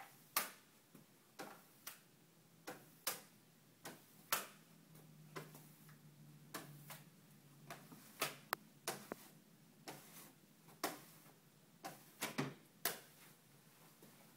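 Faint, irregular sharp clicks and taps, about one or two a second, of a plastic putty-knife tool knocking and scraping on a glass pane as water and bubbles are pushed out from under wet-applied solar film.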